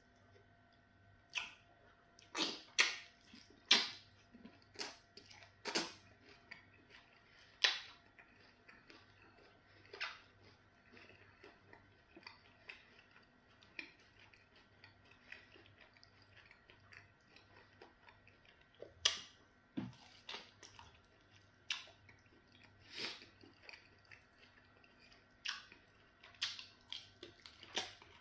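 Close-up wet chewing and lip-smacking as soft pounded yam fufu dipped in okra soup is eaten by hand. It comes as irregular sharp smacks in clusters, with quieter stretches between them.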